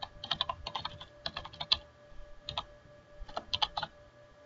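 Computer keyboard typing: several quick runs of keystrokes separated by short pauses, over a faint steady hum.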